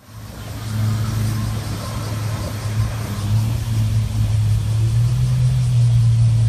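Motorboat engines of a passenger boat and jet skis on a river, running with a steady low drone that rises a little in pitch about five seconds in.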